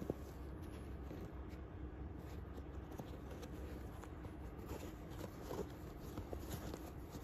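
Hands handling a Norda 001 trail running shoe: faint rustling and small ticks of the upper, tongue and laces being folded and pulled, with one sharp click right at the start, over a steady low hum.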